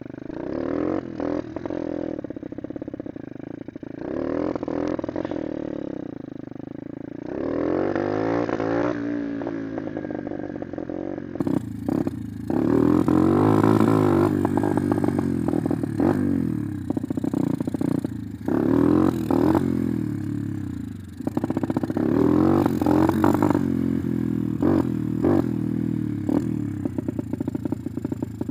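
Small dirt bike's engine revved hard and dropping back, again and again, as the front wheel is popped up for wheelies. Scattered knocks and clatter from the bike come through between the revs.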